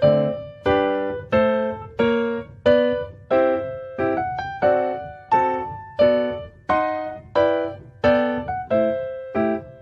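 Background music: gentle solo piano playing slow chords, one struck about every 0.7 seconds and left to fade.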